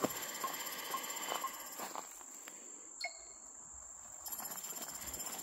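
Steady high insect drone over footsteps crunching on gravel, with short evenly spaced beeps, about two a second, in the first second and a half. The steps stop for about two seconds while the measuring pole is held still, with a single short chime about three seconds in, then resume.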